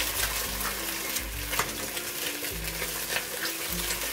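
A freshly cracked egg frying in hot oil in a pan, with a steady sizzle.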